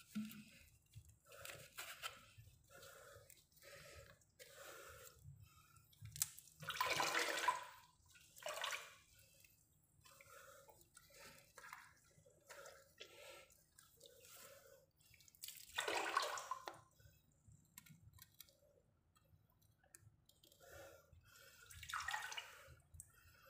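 Water sloshing and splashing in a flooded pit around a leaking water pipe as hands work in it, with small splashes or drips once or twice a second. Three louder splashing gushes, each about a second long, come a third of the way in, about two thirds in, and near the end.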